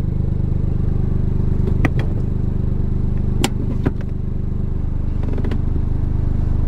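Toyota GR Yaris's turbocharged 1.6-litre three-cylinder engine idling steadily, heard from inside the cabin, with a few sharp clicks about two seconds and three and a half seconds in.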